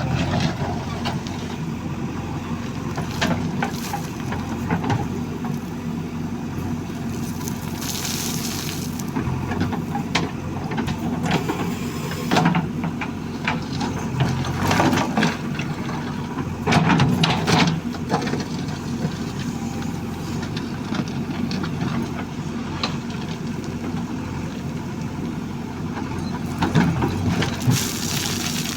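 A heavy engine running steadily, with scattered knocks and clanks over it. There are two short hisses, about eight seconds in and near the end.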